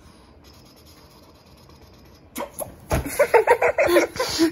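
A quiet stretch, then a man breaks into loud, excited laughter about two and a half seconds in, in rapid choppy bursts.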